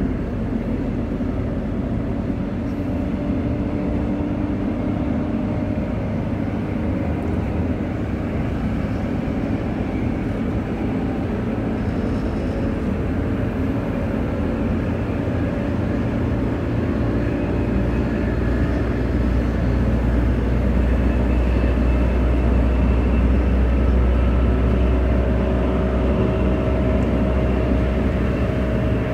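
Running noise of a Transperth Bombardier B-series electric multiple unit heard inside the carriage: a steady rumble and rush of the train on the move, growing louder about two-thirds of the way through.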